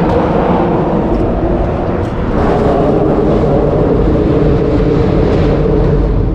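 A motor runs steadily, a loud engine drone holding a few even pitches over a low rumble.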